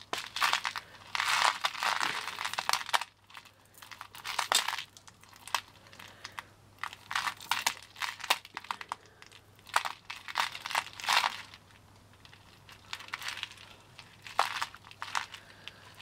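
Strands of pearl necklaces being handled and untangled by hand over a tray of loose pearls: the beads click and rattle against each other in short irregular spells with brief pauses between.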